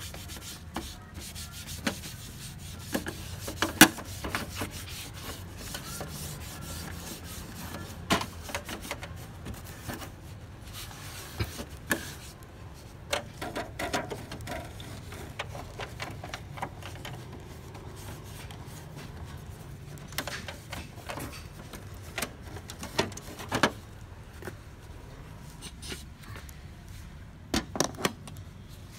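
Tissue rubbing and wiping on the printer's plastic surfaces to clear loose toner, with scattered sharp clicks and knocks from plastic parts being handled. The loudest knock comes about four seconds in, and a cluster comes near the end.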